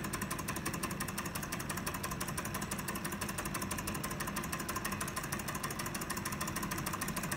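Model Stirling engine in film-projector form running steadily at speed, its flywheels and linkage making a rapid, even mechanical ticking over a low hum.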